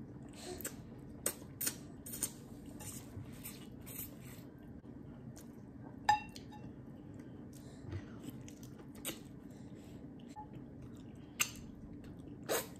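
A person chewing with the mouth close to the microphone: scattered wet smacks and clicks at an uneven pace, over a low steady hum.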